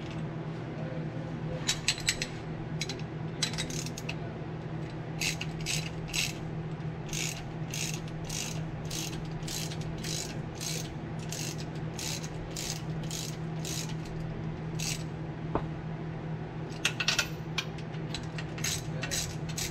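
Hand ratchet wrench clicking in runs of quick clicks, about three a second at its steadiest, as the starter motor's mounting bolts are run in. A steady low hum sits underneath.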